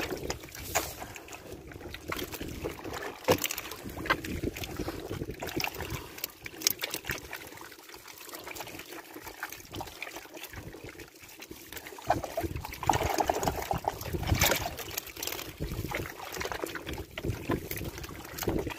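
Water trickling and splashing as a mesh net bag crammed with live sea catfish is lifted and handled, with scattered short wet clicks and slaps from the fish and the net; the handling grows louder about twelve seconds in.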